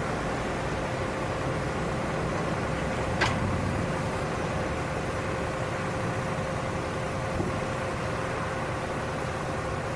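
Engine of a small farm machine running steadily, with a faint steady whine; a sharp click sounds about three seconds in and a lighter one near the end.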